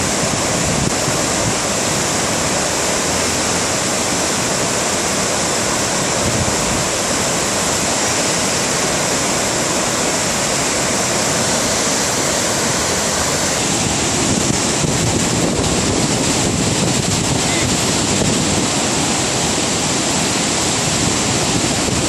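Typhoon floodwater rushing down a stepped concrete weir in a swollen river channel: a steady, loud rush of white water, the river in spate after a night of torrential rain.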